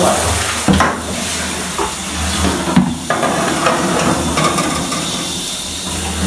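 A metal roasting pan knocking and scraping as it is slid onto the rack of a gas oven, a few clanks in the first three seconds, over a loud steady hiss.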